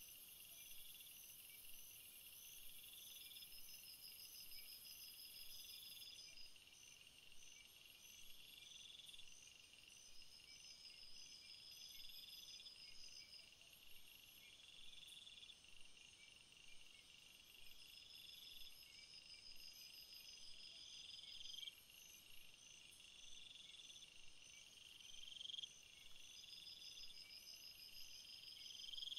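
Faint, high-pitched insect chirping: several repeating chirp patterns overlap at an even pace, with a thin steady hiss above them that stops about six seconds in.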